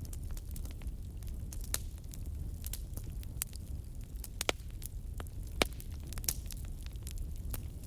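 Wood fire burning in a fireplace: a steady low rumble of flames with irregular crackles and pops, the sharpest pop about five and a half seconds in.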